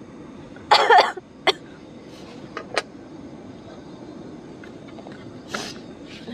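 A woman coughing twice in quick succession, set off by smoke from her camp stove, followed by a few light clicks and a softer cough or breath near the end.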